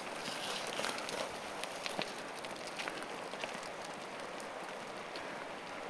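Light rain falling: a steady hiss with many small, irregular ticks of drops.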